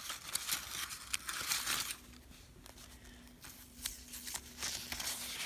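Paper crinkling and tearing in short irregular crackles as an advent calendar is opened to take out the day's card, with a sharp click at the start and a quieter pause in the middle.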